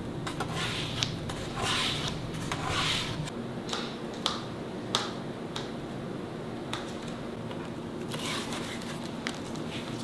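Hand-working leather at a bench: soft rubbing and scraping swishes with scattered light clicks of tools being handled and set down. A faint steady hum starts about three seconds in.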